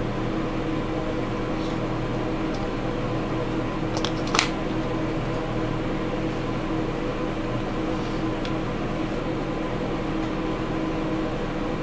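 Steady low room hum made of several even tones, with a few small clicks and one sharper click about four seconds in as the solid state relay's plastic case and circuit board are handled and pried apart.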